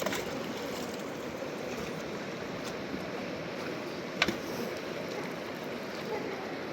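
Steady rush of flowing river water, with a sharp knock about four seconds in.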